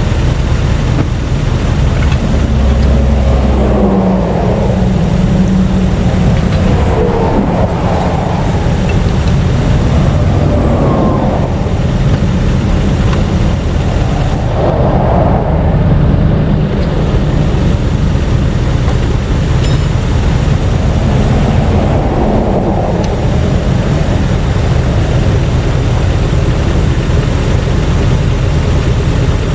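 Interstate traffic passing close by, vehicles swelling up and fading away in turn every few seconds over a steady low engine hum.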